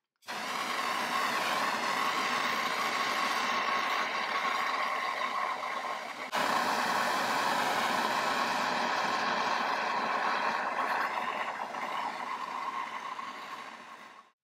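Handheld gas torch burning with a steady hiss, its flame heating babbitt metal in the crucible of a 1930s centrifugal dental casting machine until it melts. The hiss starts abruptly, dips briefly about six seconds in, and cuts off near the end.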